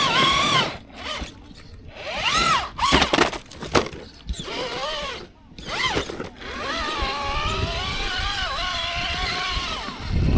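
RC rock crawler's electric motor and drivetrain whining in short throttle bursts, the pitch rising and falling with each burst, then a longer, steadier whine in the last few seconds.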